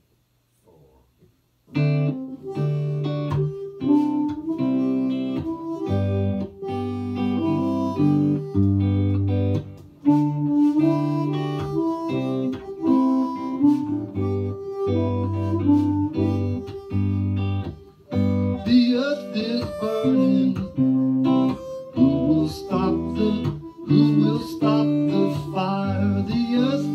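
Guitar and harmonica playing an instrumental song intro, starting suddenly about two seconds in.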